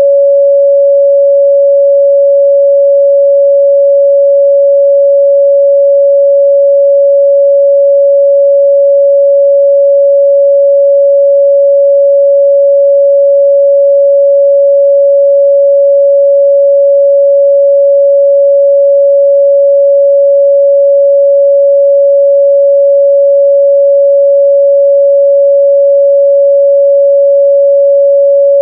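A continuous, loud 561 Hz sine-wave test tone: one pure, steady pitch that does not change, used to check a speaker's or headphone's midrange response.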